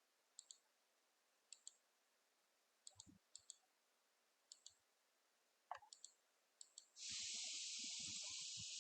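Faint computer mouse clicks, mostly in quick pairs like double-clicks, about seven times over several seconds. Near the end, a steady hiss starts suddenly.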